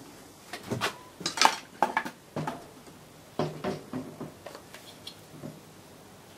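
Irregular metallic clunks and knocks as a 4.5 hp lawnmower engine is lowered onto a steel engine mount and shifted about to line it up over its mounting holes.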